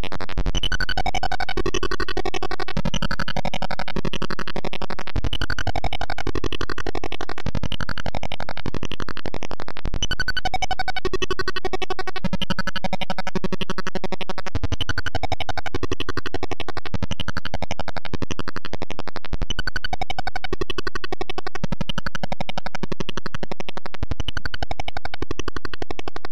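Sierpinski triangle fractal image converted into sound: harsh, buzzy synthetic tones in blocky steps that shift pitch pattern every second or so, repeating in a mechanical, self-similar way.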